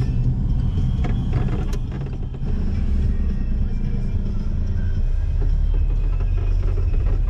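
Car driving, heard from inside the cabin: a steady low engine and road rumble, with a few light clicks in the first two seconds.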